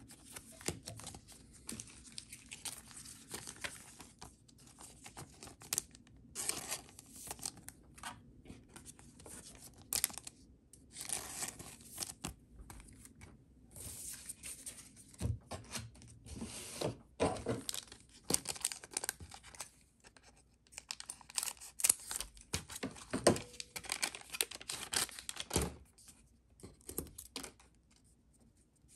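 A trading-card booster pack wrapper being torn open and crinkled in a series of short, irregular rips and rustles.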